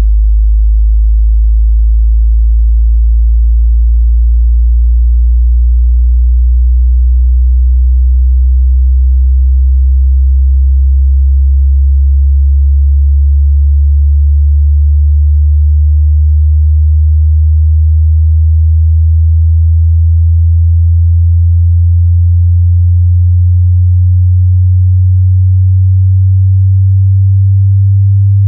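Pure sine test tone from a hearing-test frequency sweep, held at constant strength and gliding slowly upward in pitch from a very low hum near 50 Hz to about 100 Hz.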